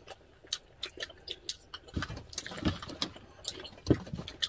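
Close-miked eating: scattered quick clicks and light taps of a wooden spoon and chopsticks against glass bowls, with a few duller knocks and mouth noises from chewing.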